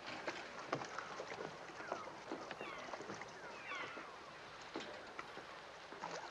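Film soundtrack heard quietly: a small boat out on open water, with a few short falling cries around the middle, typical of gulls.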